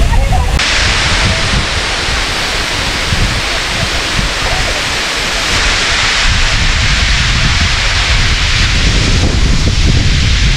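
Water overflowing in a sheet down the face of a stone masonry dam: a steady, loud rushing that starts suddenly about half a second in. Wind rumbles on the microphone underneath.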